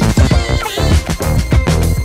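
Upbeat electronic music with a steady drum beat and heavy bass.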